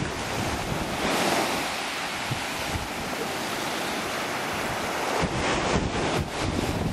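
Small sea waves breaking and washing up a pebble beach, with a hissing wash that swells about a second in. Wind buffets the microphone with low rumbles, mostly in the last couple of seconds.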